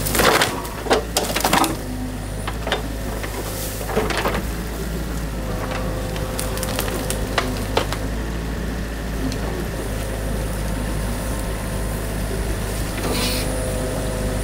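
Mini excavator running steadily as its arm swings the bucket over to a beaver dam, with the hiss of water spilling through the dam. A few knocks in the first two seconds.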